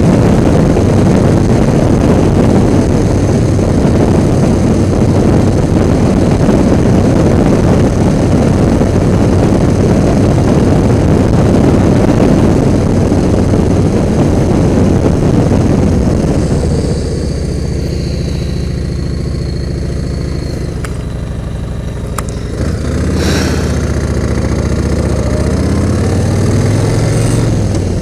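Motorcycle engine with a loud, even rush of road and wind noise for the first half or more. About two-thirds of the way through it drops to a quieter, steady idle.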